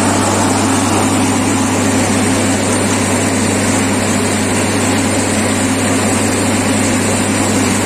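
Diesel engine of a railway track compaction (tamping) machine running steadily at a constant speed, a loud even hum.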